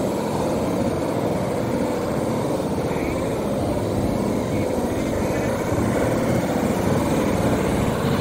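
Sea surf breaking and washing up a sandy beach in a steady wash, with wind buffeting the microphone as a low rumble. It swells a little near the end as a wave breaks close to shore.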